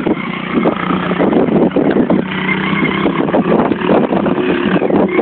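Small 110 cc quad's engine running as it is ridden across a dirt track, its note changing about two seconds in as the rider works the throttle.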